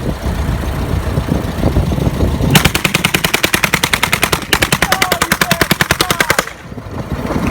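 Non-firing replica Browning machine gun, a noise-making gun fed by a plumbing and electrical system, firing two long rapid bursts of about ten sharp reports a second, with a short break between them. A vehicle engine runs underneath, alone for the first couple of seconds.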